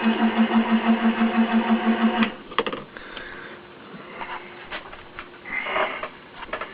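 Milling machine running, a steady hum that pulses about six times a second, then stopping abruptly a little over two seconds in. Scattered sharp clicks and knocks follow.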